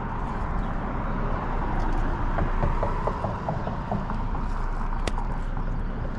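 Steady road-traffic noise, a motor vehicle passing and swelling slightly towards the middle, with a quick run of light ticks about two and a half seconds in.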